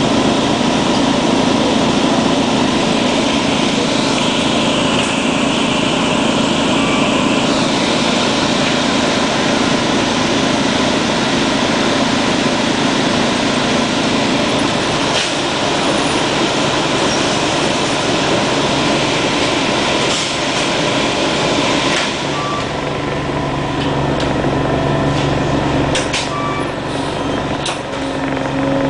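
The Detroit Diesel Series 50G inline-four natural-gas engine of a 1999 Orion V CNG transit bus running steadily. Its note changes to a deeper, steadier hum about 22 seconds in, and a few sharp clicks come near the end.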